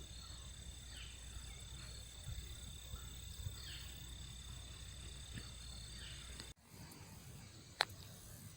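Faint outdoor ambience: a steady high insect drone, like crickets, over a low rumble. It cuts off abruptly about six and a half seconds in, and a single sharp click follows near the end.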